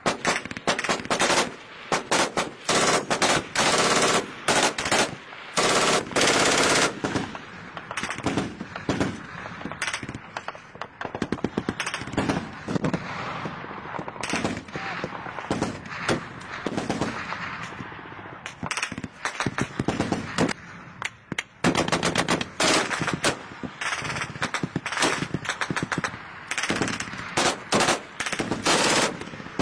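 Machine-gun fire in long, rapid bursts of many shots, heavier near the start and again in the last third, with sparser shots in between.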